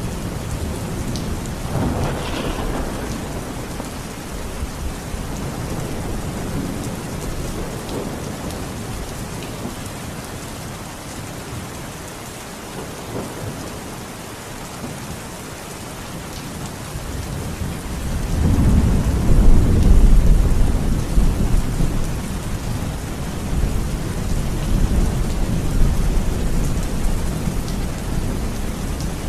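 Steady heavy rain with thunder: a short crack about two seconds in, then a long deep rumble of thunder that swells about two-thirds of the way through and rolls on as it fades.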